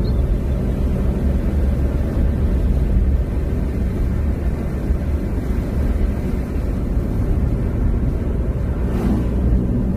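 Steady low rumble of tyre and engine noise heard inside a moving car's cabin, with an oncoming car passing about nine seconds in.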